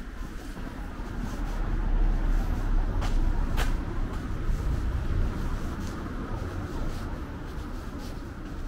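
Low rumble of a motor vehicle passing along the street, swelling to its loudest about two to three seconds in and slowly fading, with two sharp clicks a little after three seconds.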